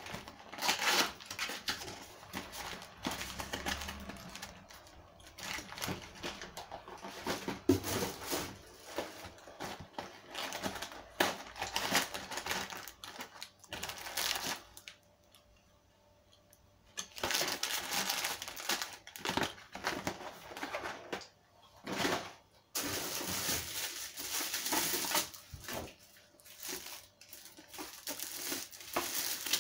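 A kitchen knife cutting and tearing open a cardboard product carton, with crinkling packaging and the knocks and scrapes of handling. The noise breaks off for a couple of seconds about halfway through.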